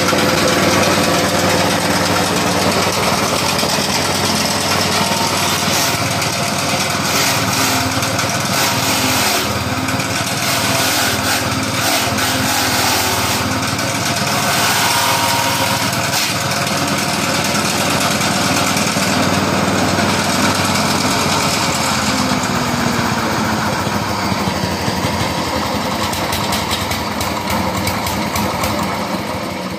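Small petrol engine driving a mini grass chopper under load, while old, partly dried coconut material is fed in and chopped with irregular crackling rattles. Near the end the engine is throttled down and the noise drops.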